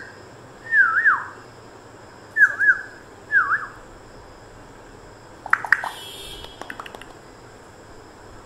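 African grey parrot whistling: three short swooping whistles, each dipping down and back up in pitch, in the first four seconds. They are followed by a quick run of clicks.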